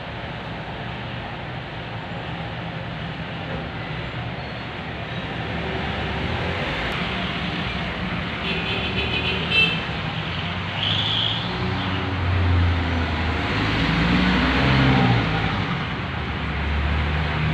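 Multi-pass rice milling machine running steadily, a continuous mechanical hum and rush of grain through the mill, growing louder in the second half, with a brief rattle and a sharp knock a little past the middle.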